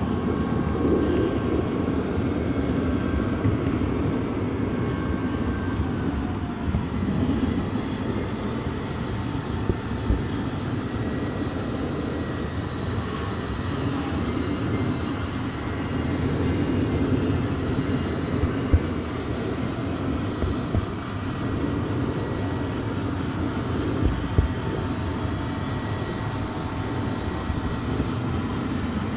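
Steady low rumble of a moving train, with a few sharp knocks along the way.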